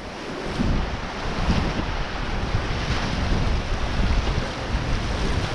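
Rushing whitewater around a paddled raft in a river rapid, with heavy wind buffeting on the microphone; the rush swells about half a second in and stays steady.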